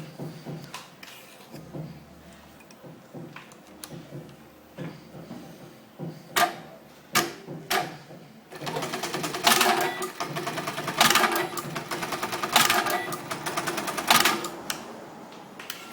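Lockstitch button sewing machine (ORS-438 D, BE-438 / LK-1903 type) at work: a few light clicks, then three sharp clacks, then a fast run of stitching of about six seconds from a little past halfway, with several louder surges in it.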